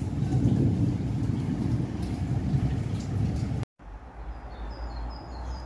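Rain falling hard after a hailstorm, a steady rushing noise heavy in the low end. It cuts off abruptly about three and a half seconds in, leaving a quieter outdoor background with a few faint bird chirps.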